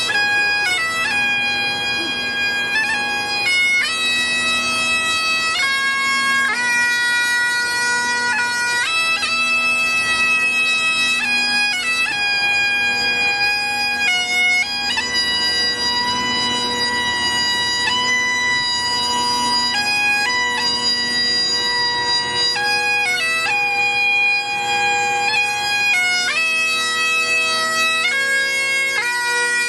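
Great Highland bagpipe played solo: a melody of held notes on the chanter over the steady, unbroken sound of the drones.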